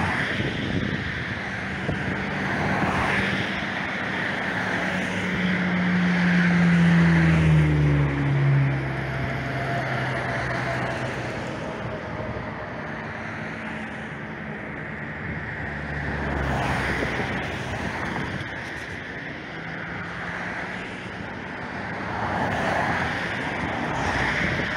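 Passing road traffic with wind on the microphone: one vehicle goes by about six to nine seconds in, its engine note dropping in pitch as it passes.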